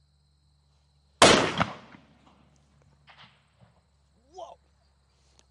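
A single shot from a .338 Lapua Magnum rifle about a second in: one loud, sudden report that trails off over most of a second.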